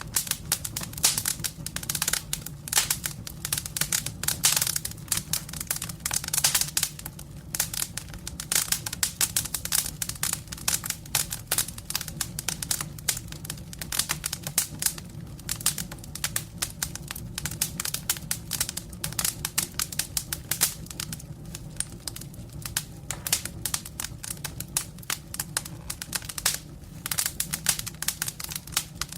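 Campfire burning: wood crackling and snapping in a dense, irregular run of sharp pops over a steady low rumble of the flames.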